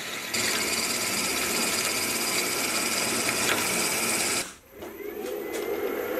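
Milling machine spindle driving a long twist drill into a metal plate: steady cutting noise with the machine's running tones. It cuts off about four and a half seconds in, and a boring bar then cuts the hole with a lower, steady sound.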